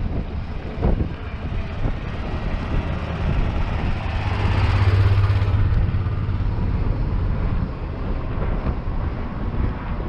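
A motor vehicle passing by: a low hum with a rushing noise swells to a peak about five seconds in and fades away, over a steady low rumble of street ambience.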